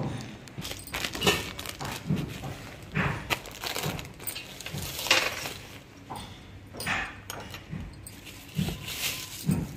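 Clear plastic bags and wrapping crinkling and rustling as wrapped clothes are handled and rummaged through, in irregular bursts.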